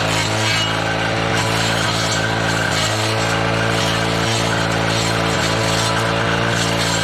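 Husqvarna 240R brushcutter's two-stroke engine running at a steady speed, with a few brief dips, before its Walbro carburettor is rebuilt.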